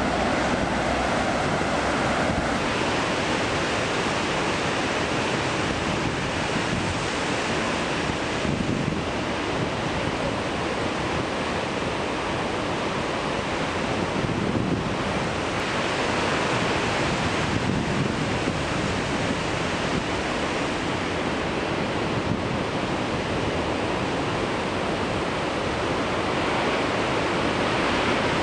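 Heavy surf breaking on black volcanic rocks and a beach, a steady wash of waves, with wind buffeting the microphone.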